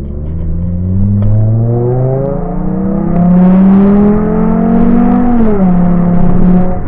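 Volkswagen Mk6 Golf's engine pulling hard under acceleration, heard from inside the cabin: its pitch rises steadily, drops sharply about five and a half seconds in as it shifts up, then holds steady.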